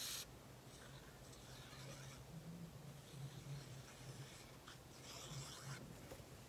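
Faint handling noise: paper rustling and rubbing under the hands, in soft scattered bits, over a low steady hum.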